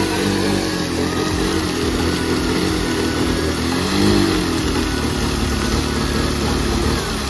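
Scooter engine revving hard while its rear wheel spins in water and mud in a burnout, throwing up spray. The revs waver up and down and peak about four seconds in.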